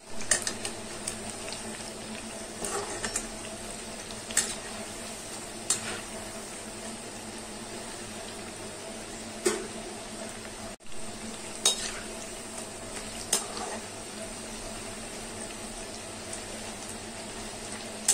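Onion pakoras deep-frying in hot oil in a metal kadhai: a steady sizzle, with a metal utensil clinking and scraping against the pan now and then as they are stirred and turned.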